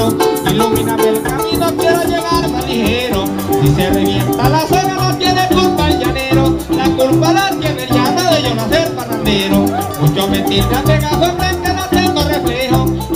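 Live llanero band music: a harp playing, with maracas shaking and an electric bass underneath.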